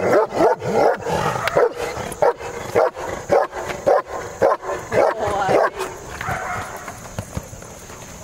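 German Shepherd barking hard and fast at a helper during a protection-work bark and hold, about two to three sharp barks a second. The barking stops about six seconds in as the dog goes for the bite sleeve.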